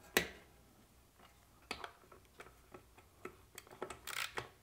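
Light metallic clicks and taps of a nut driver working the ignition armature's mounting bolt on a small engine as the bolt is backed off, with one sharper click just after the start and a brief scrape about four seconds in.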